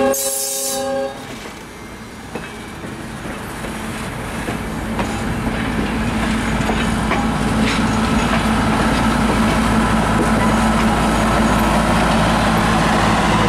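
A train horn sounds for about the first second and cuts off. Then passenger coaches roll past with scattered wheel clicks, while the diesel engine of the ALCO RS-1 locomotive at the end of the train grows steadily louder as it draws near.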